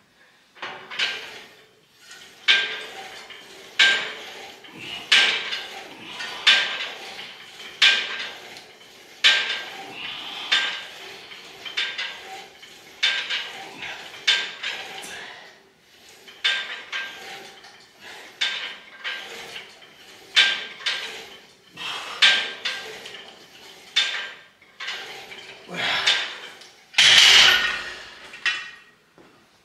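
Weight-stack plates of a cable machine clinking with each rep of a standing cable chest press: a short metallic clank about every second and a half. Near the end of the set there is a louder clatter as the stack is let down.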